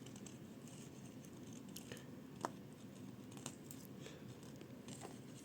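Faint clicks and light handling of small parts as a Uni Kurutoga Dive mechanical pencil is taken apart, with one sharper click about two and a half seconds in.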